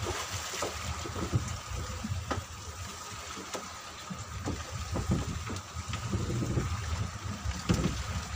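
Small fishing boat riding a rough sea: water sloshing and slapping against the hull, with scattered irregular knocks and a steady low rumble underneath.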